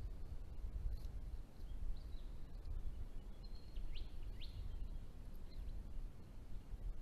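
Diamond firetails giving a few faint, short, high calls, with a cluster of quick rising and falling chirps about four seconds in, over a steady low rumble of background noise.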